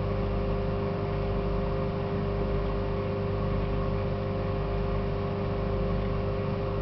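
Microwave oven running, a steady hum made up of several held tones with no change or clicks.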